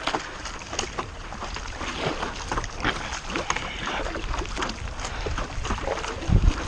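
Paddle splashing and dripping in lake water as a stand-up paddle board is paddled in the rain, in many short irregular splashes over a steady wet hiss, with one dull low thump near the end.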